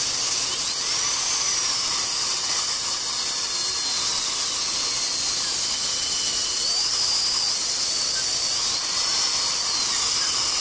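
Dental handpiece whining high and faint, its pitch rising and falling, over a steady hiss while it prepares a root resorption defect.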